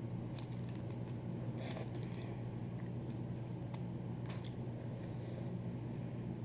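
Scattered small clicks and crackles of boiled crawfish shells being cracked and peeled by hand, over a steady low hum.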